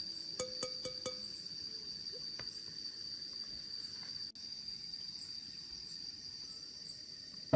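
Steady high-pitched chirring of crickets, with a quick run of about four light clicks in the first second as the glass vase is handled and set down.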